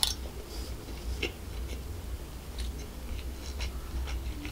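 Close-miked chewing of a mouthful of chicken fried rice: scattered soft, wet mouth clicks and smacks.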